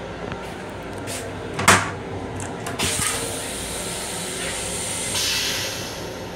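Long Island Rail Road M7 railcar toilet flushing: a sharp clunk, then a few seconds of hissing as rinse water sprays into the bowl. The steady low rumble of the moving train runs underneath.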